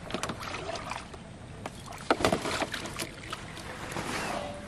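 Red plastic bucket dipped into a pond and filled, water splashing and sloshing, loudest about two seconds in.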